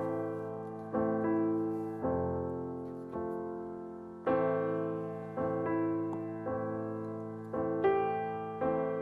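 Background piano music: slow chords struck about once a second, each fading away before the next.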